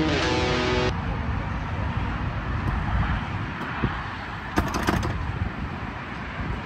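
Guitar music cuts off about a second in, leaving steady traffic hum. A locked glass door clunks and rattles against its lock several times in the middle as it is tugged by its handle.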